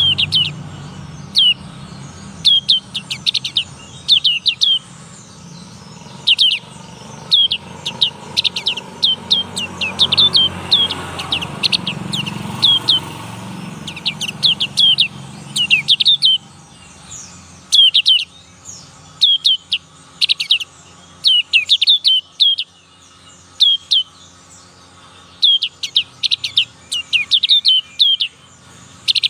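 Young black-capped white-eye singing, practising its song: quick clusters of short, high, down-slurred chirps, repeated every second or two.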